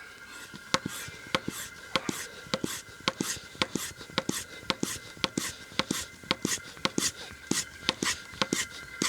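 Manual vacuum oil extractor pump being worked by hand to draw engine oil up through a hose in the dipstick tube. Its strokes click sharply about three times a second over a faint steady high tone.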